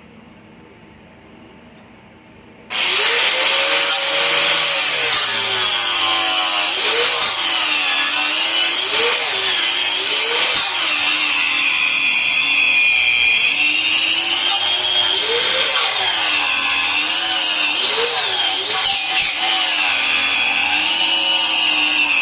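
A handheld electric power tool, of the grinder kind used to prep a steel car frame, switches on about three seconds in and runs continuously. Its motor pitch sags and recovers again and again as it is pressed into the work and eased off.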